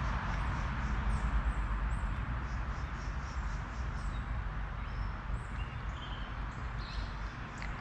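Steady rushing of a small creek's flowing water, with a low rumble underneath.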